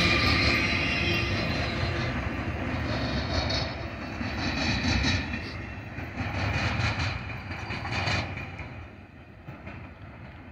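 Freight cars of a rail train rolling past, their steel wheels clacking over the rail joints. The sound fades as the end of the train moves away.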